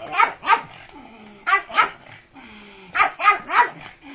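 Pug barking in short, sharp runs: three barks at the start, two about a second and a half in, and four more about three seconds in.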